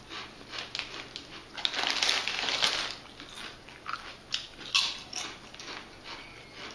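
A person biting into and chewing thin, crunchy potato chips: an irregular run of crisp crunches, densest a couple of seconds in, with a few sharp single crunches later.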